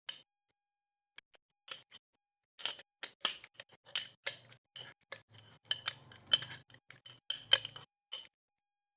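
Spoon clinking and scraping against a bowl while breaking up mushroom spawn: a few separate knocks at first, then a quick irregular run of clinks from about two and a half seconds in until shortly before the end.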